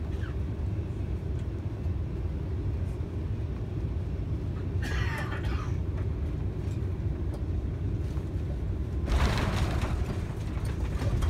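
Steady low rumble inside an Airbus A380's cabin while the aircraft rolls along the ground after landing. A brief higher sound comes about five seconds in, and a broad hiss joins about nine seconds in.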